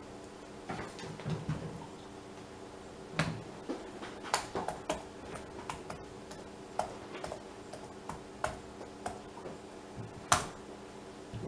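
Irregular light clicks and taps, more than a dozen scattered through, the loudest about ten seconds in, over a faint steady hum.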